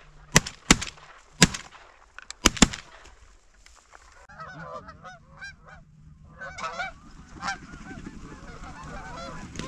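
Five shotgun blasts in quick succession, the last two close together, fired at geese. After a cut, a flock of Canada geese honks over and over.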